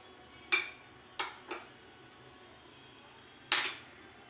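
Metal spoon clinking against a glass bowl: four sharp clinks with short ringing, three in the first second and a half and the loudest about three and a half seconds in.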